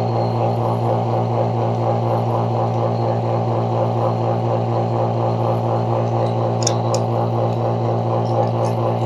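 Electric motor running with a steady low hum, with a couple of faint ticks about two-thirds of the way through.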